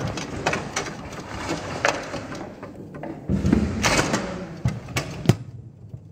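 Foosball table in play: irregular sharp knocks of the ball struck by the figures and against the table, with rods clacking. A duller thump comes about midway, and the sharpest knock comes near the end.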